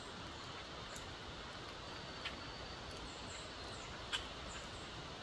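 Quiet outdoor woodland background with a steady hiss, broken by a few sharp clicks, the loudest about four seconds in, and faint high chirps.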